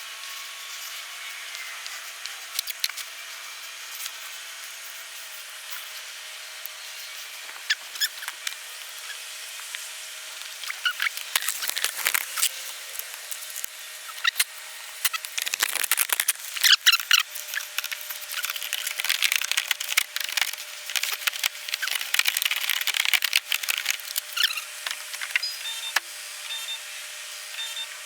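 Electrical tape being pulled, torn and wrapped around spliced wiring: irregular crinkling, rustling and sharp clicks, busiest in the second half, over a faint steady hum.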